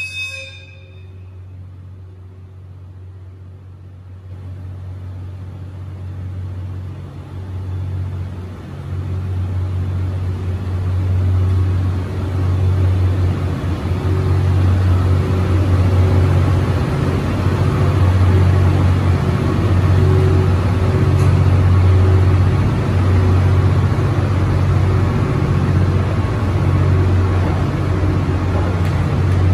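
Cassiopeia Kikō sleeper train's E26 series coaches pulling out and rolling past: a steady low rumble that builds over the first several seconds and then holds loud. A horn note cuts off right at the start.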